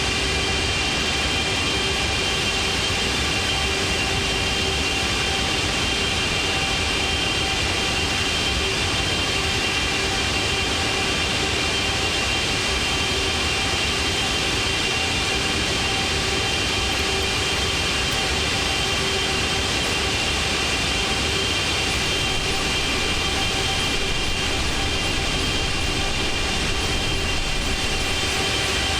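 Airplane engine noise, a steady, unchanging drone with several high whining tones over a low rumble.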